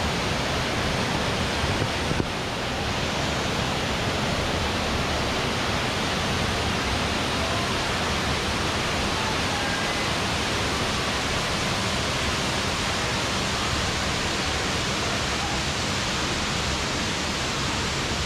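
Water rushing over the rocks of a shallow creek, a steady even wash of sound, with a small click about two seconds in.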